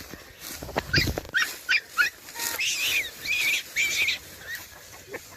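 Galgos (Spanish sighthounds) giving a quick run of short, high yelps about a second in, followed by longer, wavering whining cries.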